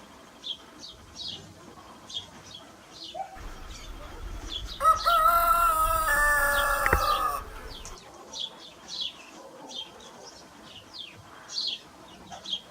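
A rooster crows once, a loud drawn-out call of about two and a half seconds, starting about five seconds in. Small birds chirp throughout.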